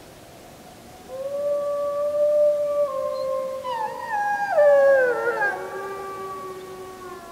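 Wolves howling together: one long, steady howl starts about a second in, and a second, higher voice joins near the middle, its pitch sliding down in steps before the howls fade out. A faint hiss sits underneath.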